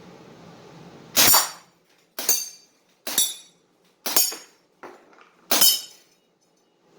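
Crosman CO2 BB gun shots with the BBs striking the target, five sharp cracks about a second apart, each followed by a high metallic ring, plus one fainter hit between the fourth and fifth.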